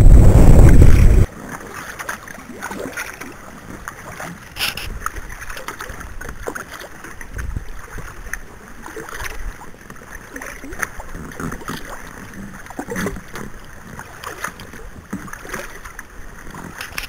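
Wind buffeting the microphone for about a second, cutting off abruptly. Then faint lapping water with scattered small splashes and ticks against a quiet background.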